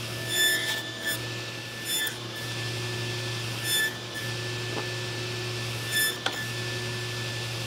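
Steady low electrical hum with short, bell-like ringing tones about every two seconds, and one light click a little past the six-second mark.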